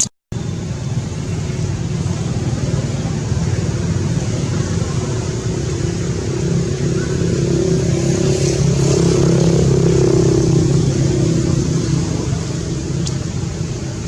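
A motor vehicle engine running steadily, growing louder through the middle and easing off again toward the end.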